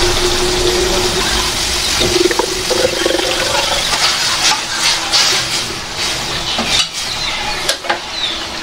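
Cooking oil being poured from a bottle into a plastic oil dispenser, glugging and splashing in a run of short strokes through the second half. A steady hum and hiss run underneath.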